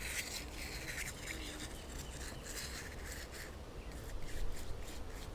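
Small cleaning brush scrubbing debris out of a lawnmower carburetor float bowl, a run of quick, dry scratching strokes.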